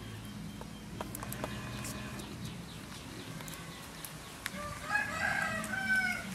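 A chicken calling in a run of short pitched calls for about a second and a half near the end.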